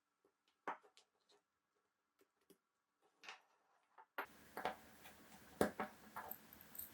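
Small sharp clicks and taps of watchmaker's tools on a wristwatch being disassembled. There are a few isolated clicks at first, then more frequent ones from about four seconds in, over a faint hiss.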